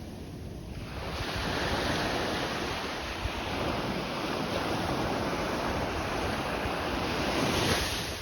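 Sea waves surging onto the shore: a rushing hiss that swells about a second in and peaks near the end.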